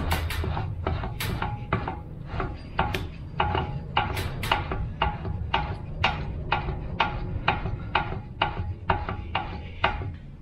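Ford 8.8 ring and pinion gears being turned by hand, the teeth clicking metallically about three times a second as they mesh and print their contact pattern in the paint, over a steady low hum.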